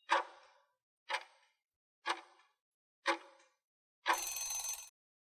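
Countdown-timer sound effect: four clock ticks, one a second, then a louder sound just under a second long marking time up.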